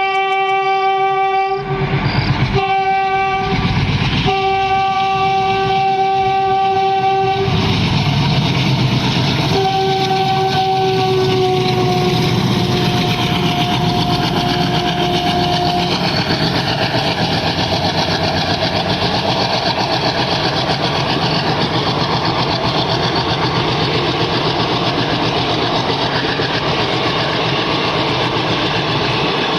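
Twin ALCO diesel locomotives sounding their air horn in a long, broken blast, then a second blast that sags slightly in pitch as they pass. After that comes a steady diesel chugging mixed with the rumble and clickety-clack of the coaches rolling by as the express accelerates away from the station.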